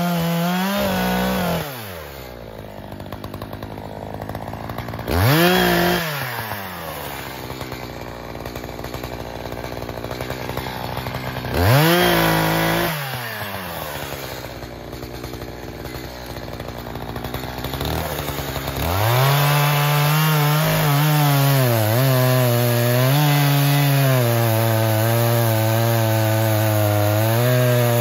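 Echo CS-4510 two-stroke chainsaw finishing a cut through a log, then dropping to idle and revved briefly twice. About two-thirds through it goes back into the wood at full throttle, its pitch wavering as the chain takes the load.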